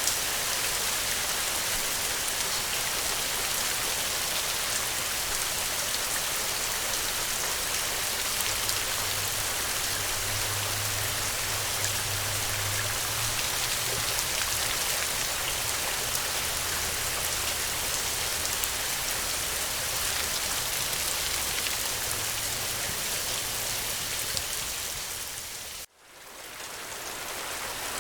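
Steady rain falling on the ground, an even hiss with fine drop ticks. About two seconds before the end it fades almost to nothing and swells back in.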